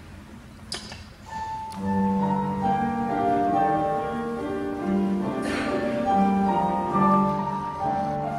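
Piano accompaniment playing a soft introduction of held, overlapping notes, starting with a single note just over a second in and filling out into chords. There is a sharp click shortly before it begins and a brief hiss midway.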